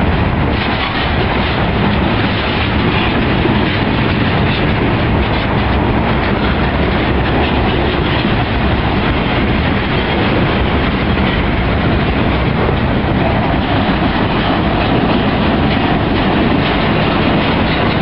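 Freight cars, mostly centerbeam flatcars loaded with bundled lumber, rolling past close by, their steel wheels running on the rails in a loud, steady rumble.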